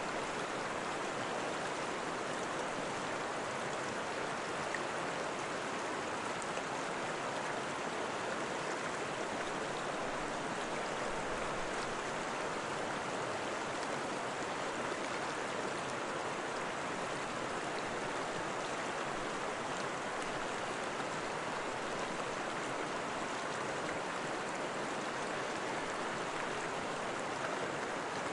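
Steady rushing of running water, like a stream.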